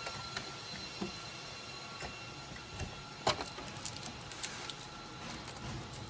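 Clicks and knocks of hands working metal parts of an open rack server, the GPU riser cage being seated and tightened, with one louder knock about halfway through, then light rattling and ticking as the GPU power cable bundle is handled.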